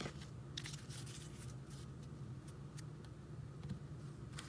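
Faint rustling and light ticks of paper baseball cards being handled and set down, scattered through a few seconds, over a steady low hum.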